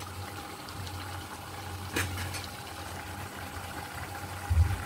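Mutton and potato curry simmering in an aluminium kadai over a gas burner, over a steady low hum. A light click comes about two seconds in and a low knock near the end.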